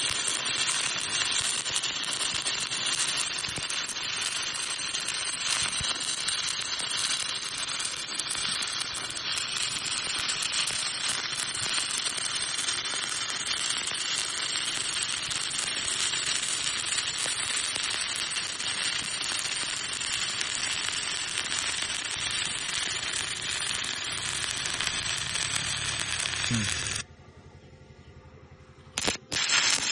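Stick-welding (SMAW) arc crackling steadily as a bead is run. It breaks off suddenly a few seconds before the end, sputters once briefly, then relights.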